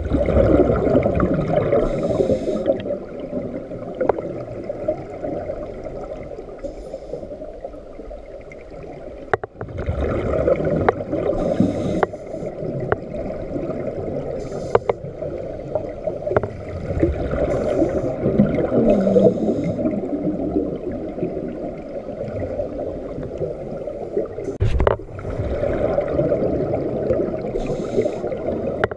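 Underwater scuba regulator exhalations: irregular bursts of rushing, gurgling bubbles every few seconds over a low watery rumble, with a few sharp knocks.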